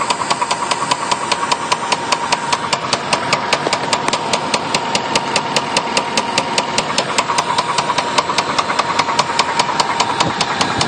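Chevrolet Caprice engine idling with a sharp, even knock several times a second over a steady whine: a pushrod knock, the result of over-revving in second gear.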